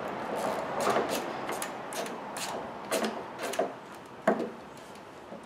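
Metal hand tools clicking and scraping on the alternator's top mounting bolts as they are tightened, in irregular short strokes.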